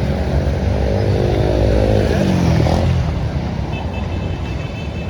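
Road traffic with a vehicle engine passing close: its pitch falls as it goes by, two to three seconds in, over a steady low rumble. A thin high whine joins near the end.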